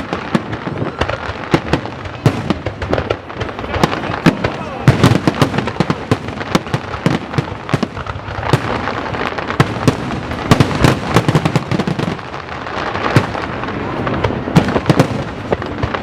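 Aerial fireworks display: a rapid, continuous barrage of bangs and crackling. Louder clusters of bursts come about five seconds in and again near the end.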